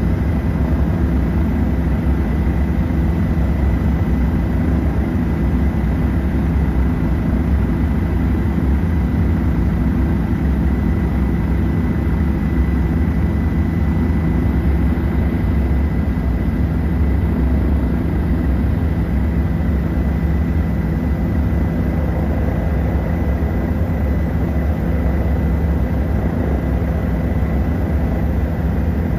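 Helicopter in flight, heard from inside the cabin: a steady, loud low drone of rotor and engine with a thin high whine held throughout.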